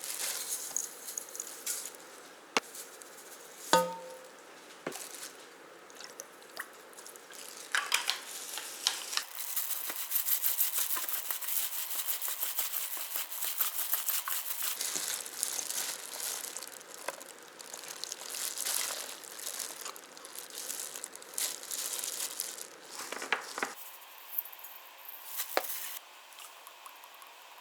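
Kitchen cooking sounds: food sizzling in a pan, with a denser stretch of sizzling about a third of the way in, amid scattered clicks and knocks of utensils and packaging.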